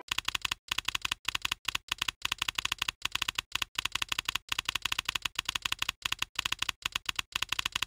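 Typewriter keys clacking rapidly, as a sound effect for text being typed onto the screen, in runs of quick keystrokes broken by brief pauses.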